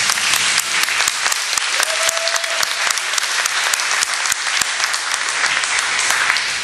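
Audience applauding at the end of a stage musical number: dense, steady clapping from a large crowd, with a brief held cheer from someone about two seconds in.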